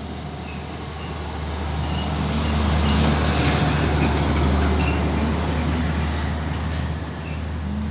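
Isuzu FVR diesel truck engine running as the truck passes close by at low speed, growing louder toward the middle and easing off as it goes past.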